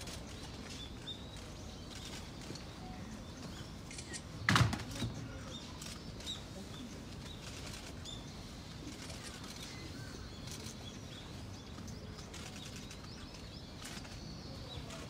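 Outdoor background with faint small-bird chirps, and one sharp knock about four and a half seconds in, the loudest sound.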